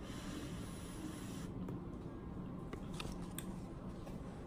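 Someone eating macaroni and cheese from a fork: a few faint clicks and rustles about halfway through, over a steady low room hum.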